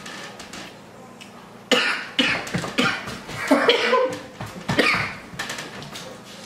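Harsh coughing in a run of sudden bursts, starting about two seconds in and dying away about five seconds in: the spice of very hot chicken wings just eaten catching in the throat.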